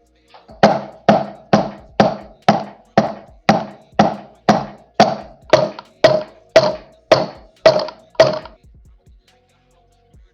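A hammer striking metal in a steady series of about sixteen blows, roughly two a second, each with a short ringing note; the blows stop a little over two seconds before the end.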